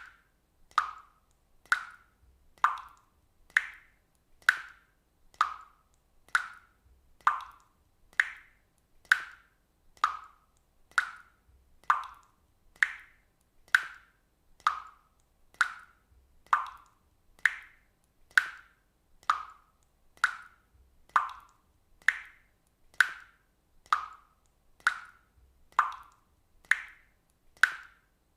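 Water droplets dripping one at a time, each a short pitched plop. They fall at a steady pace of about one drop a second, and the pitch shifts a little from drop to drop.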